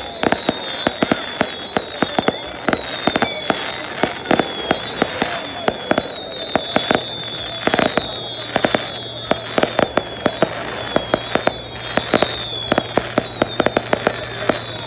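Fireworks display: a dense, irregular run of sharp bangs and crackles from bursting shells. A high whistling tone falls in pitch again and again under the bangs.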